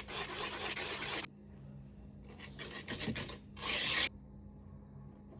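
Dry rasping, scraping strokes of brownie-baking preparation. A quick run of strokes stops after about a second, a few more come about two seconds in, and one louder scrape ends them about four seconds in.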